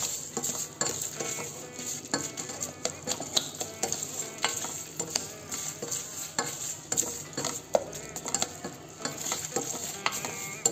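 A spatula stirring and scraping chopped tomatoes, onions and garlic in a stainless steel pot, with frequent short scrapes against the metal, over a steady sizzle of the vegetables frying in oil.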